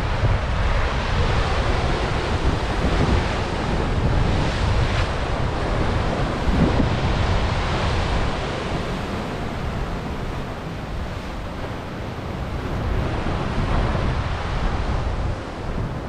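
Sea surf breaking and washing over rocks at the foot of a low rocky cliff, with strong wind buffeting the microphone.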